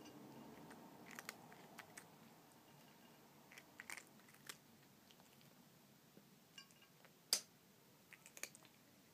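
A cat eating from a plate: faint chewing with scattered small clicks and crunches, and one sharper click about seven seconds in.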